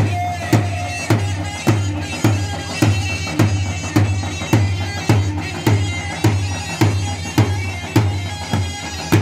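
Iraqi choubi dance music: a sustained, reedy wind-style lead melody over a steady, even drum beat of roughly two strokes a second.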